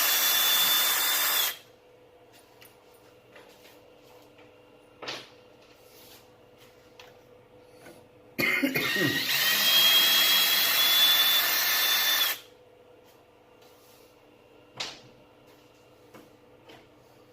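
Power drill running in two bursts, the first ending about a second and a half in and the second lasting about four seconds near the middle, each with a steady high whine: screws being driven out of the bowl blank.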